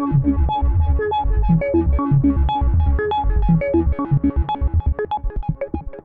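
Roland SH-101 monophonic analog synthesizer playing a rapid sixteenth-note sequence, a heavy bass line under repeating higher notes. From about two-thirds of the way in, the bass drops away and the notes shrink to short, thin plucks that fade.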